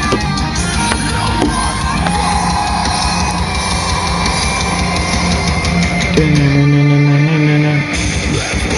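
Heavy rock or metal music with distorted electric guitar and a drum kit. About six seconds in, a low guitar note is held for about two seconds while the drums drop back.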